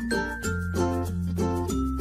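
Background music: a tune of quick struck or plucked notes over held bass notes that change every second or so.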